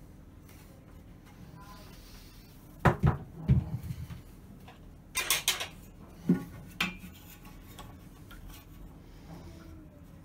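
Sharp knocks and clatter of a wooden board and hand tools being handled and set down, in small clusters about three, five and six seconds in.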